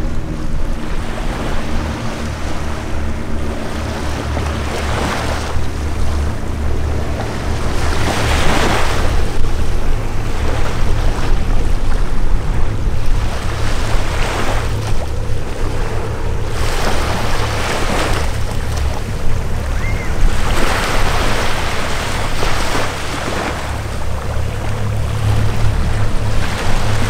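Steady low drone of a formation of single-engine propeller aircraft passing overhead, under rushing wind and surf noise that swells every few seconds.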